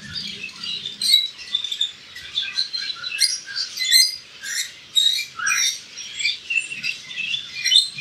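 Many overlapping short, high chirps and squeaks from caged small pets, steady and busy throughout, with a few quick rising calls.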